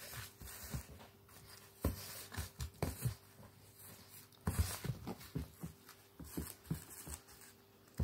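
Irregular soft thumps and scuffling of a nine-week-old Cavalier King Charles spaniel puppy tumbling and playing among plush toys on a rug.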